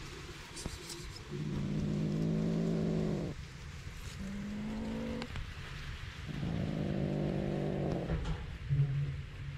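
Ginger kitten growling at a hand reaching towards it: three long, low growls, each a second or two, and a short one near the end.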